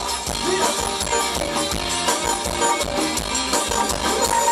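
Live Thai band playing upbeat ramwong dance music with a steady beat.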